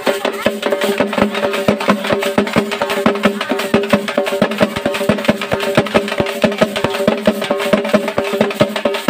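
Large hand-held frame drums beaten with sticks in a fast, driving rhythm, several sharp strokes a second with a ringing note from the drumheads.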